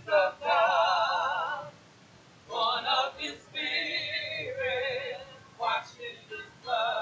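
Church praise team of men and women singing together, holding long notes with a wavering vibrato, with a short pause about two seconds in before the next phrase.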